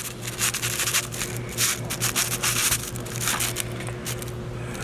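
Hands handling wires and a hose inside a small boat's hull: irregular rustling and scraping handling noises over a steady low hum.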